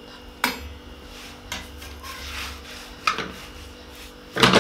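Cooked chapatis being handled by hand and lifted with a metal spatula: soft rubbing and scraping broken by a few sharp knocks, the loudest near the end.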